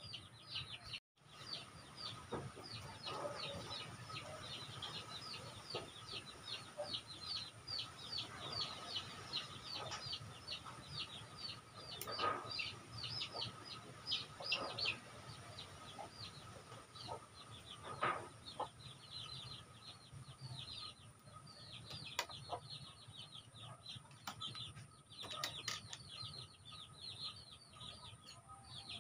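Chickens in the background: a continuous run of rapid high-pitched peeping, several peeps a second, with an occasional louder, lower cluck.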